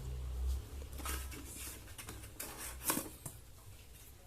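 Light handling noise from an air fryer's removable basket being held and turned over: a low rumble at the start, then a few scattered soft clicks and scrapes.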